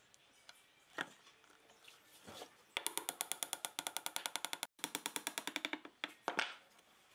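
Hammer tapping a glued wooden dowel into a hole in a wooden post. Two fast runs of even taps, about nine a second, are split by a short break, with single knocks before and after.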